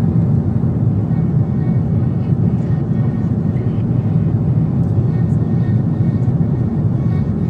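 Steady, low-pitched cabin noise of a twin-engine jet airliner in cruise flight: engine and airflow noise heard from inside the cabin at a window seat.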